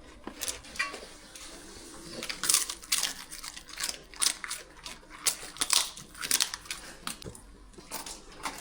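Dogs biting and chewing crunchy dried tripe treats: an irregular run of sharp crunches.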